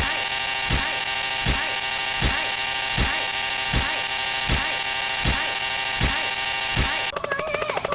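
Harsh, dense electronic noise of stacked sound effects, with a deep falling thump about every three-quarters of a second under a steady hiss. About seven seconds in it switches abruptly to a faster buzzing pattern.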